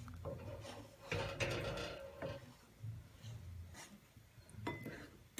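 Slotted wooden spatula stirring milk thickening into custard in an aluminium pot, rubbing and scraping against the pot in irregular strokes. The stirring is kept up while custard powder goes in, so that no lumps form.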